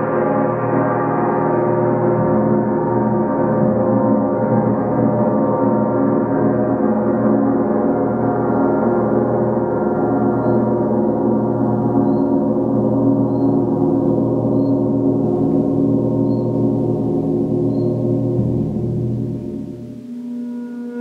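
A 39-inch WOM KI gong sounding on in a dense, shimmering wash of many overlapping tones. The upper tones slowly fade, and near the end the level drops and its deepest tones cut off.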